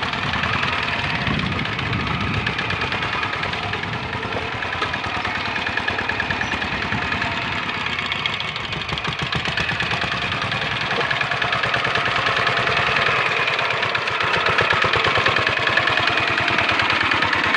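The single-cylinder Dongfeng diesel engine of a Quick Impala walking tractor running steadily under load as its cage wheels churn through a flooded rice paddy. It grows somewhat louder in the second half as the engine comes close.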